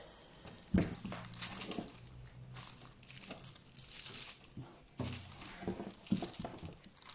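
Plastic film wrap crinkling and rustling as hands press on it and a tape measure is drawn across it, with a sharp click a little under a second in.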